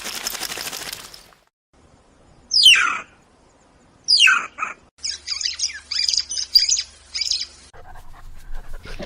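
A bird calling: two sharp calls that sweep downward in pitch, then a quick run of about half a dozen high chirps.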